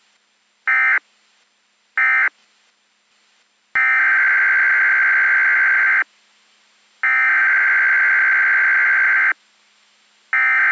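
SAME (Specific Area Message Encoding) digital data bursts from a weather radio alert. First come the last two short end-of-message bursts, about a second apart. Then, from about four seconds in, come the longer header bursts of a new alert, each about two seconds long with a one-second gap, the third starting near the end.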